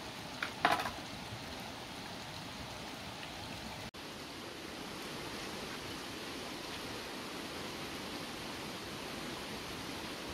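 Steady rushing noise of running water, with two sharp knife taps in the first second; the sound briefly cuts out about four seconds in.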